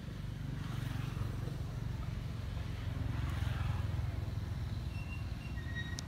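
A motor vehicle passing, its low engine rumble swelling to a peak midway and then fading. A few short high chirps come near the end.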